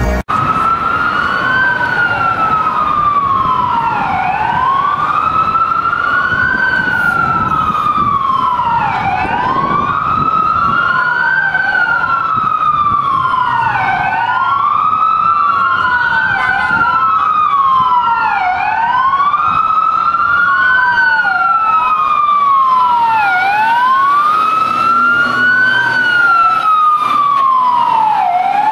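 Emergency sirens of a heavy tow truck and a Unimog service truck wailing, each sweeping slowly up and down about every two and a half seconds, the two running out of step so that their sweeps overlap. Road and engine rumble sits underneath.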